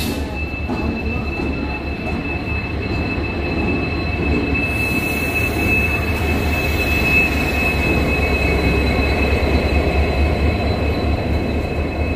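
Passenger express train running on the rails: a steady low rumble with a thin, steady high-pitched wheel squeal over it, growing a little louder and hissier about five seconds in.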